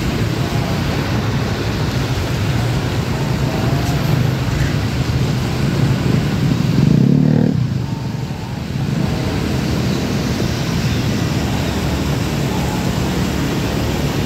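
Honda Beat scooter's single-cylinder engine running under way in dense truck traffic, with steady road and wind noise. About seven seconds in, a louder pitched engine note swells for a second, then falls away sharply.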